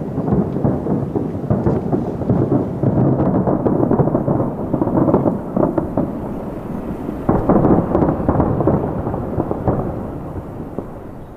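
Distant aerial fireworks shells bursting in quick succession, their booms running together into a continuous rumble. A loud cluster comes about seven seconds in, and the barrage dies away near the end.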